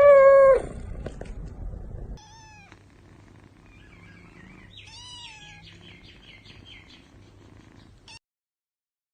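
Domestic cats meowing: one loud, drawn-out meow at the start, then several shorter, higher-pitched mews and a meow that rises and falls in pitch. The sound cuts off suddenly near the end.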